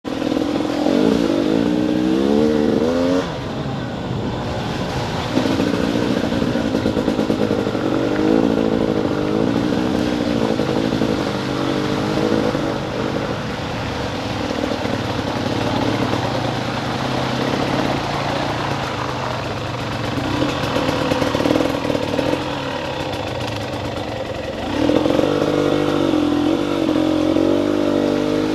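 Dirt bike engine heard from on the bike, revving up and down with the throttle as it is ridden. The revs are higher and louder in the first few seconds and again near the end, and steadier in the middle.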